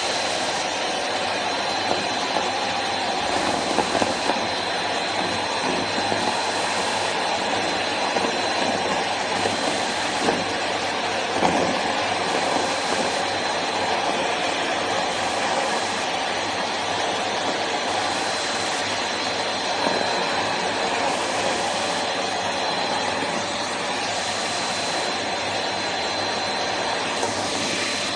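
Household vacuum cleaner running steadily: a constant rush of air with a thin high whine from the motor, and a few light knocks along the way.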